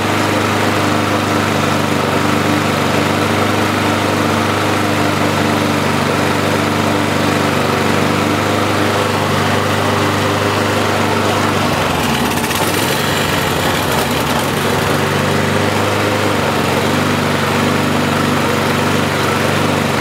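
Briggs & Stratton lawnmower engine running at a steady speed, with the speed wavering for a couple of seconds a little past the middle before it settles again. The engine is running with a governor spring missing; the owner believes that spring held the throttle, so the engine doesn't run right when the mower is moved about.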